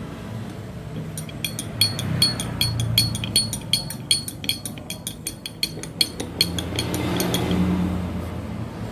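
A spoon stirring salt into squeezed kencur juice, clinking rapidly and evenly against the side of the vessel for about six seconds before stopping.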